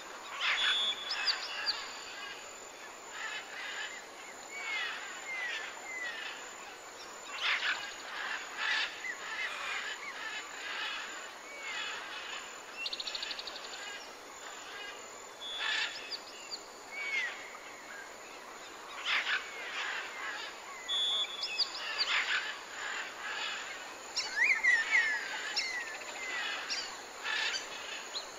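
Birds chirping and calling over a faint steady hiss: many short whistled notes, some gliding up or down, coming every second or so.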